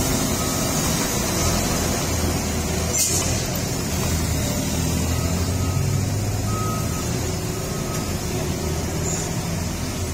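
Heavy diesel trucks and other traffic running up a steep hairpin, a steady low engine drone throughout. A brief hiss about three seconds in, and faint short beeps come and go.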